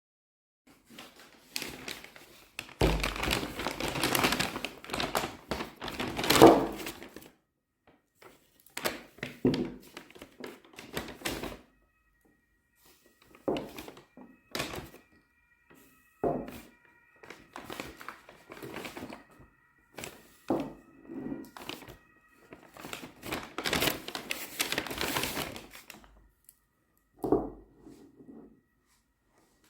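Irregular thunks, clicks and rustling of objects being handled in a small room, in bursts with short pauses between. A faint steady high tone sounds through the middle stretch.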